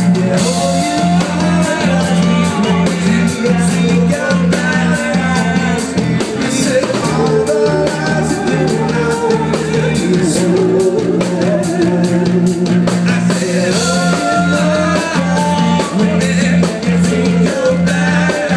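A live rock band playing: a lead singer over electric guitar, bass and a steady drum beat.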